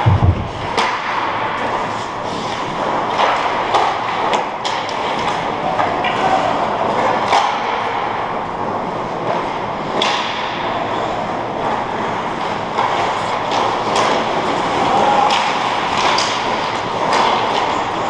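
Ice hockey play on a rink: skate blades scraping the ice and sticks and puck clacking, many short sharp knocks over a steady hiss, with one heavy thump right at the start.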